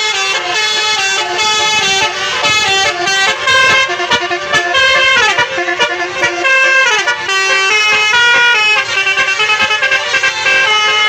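Tour buses' telolet horns, multi-tone basuri air horns, playing loud, quick stepping melodies, with sliding pitches about halfway through.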